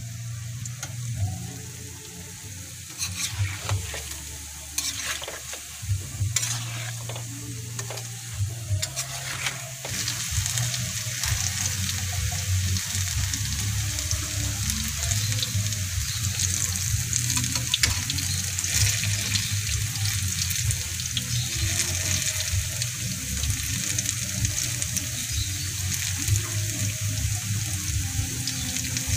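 Saba bananas deep-frying in hot oil in an aluminium wok, a steady crackling sizzle. Through the first ten seconds or so a utensil clicks and knocks against the pan as the bananas are turned; after that the sizzle runs steadier and a little louder.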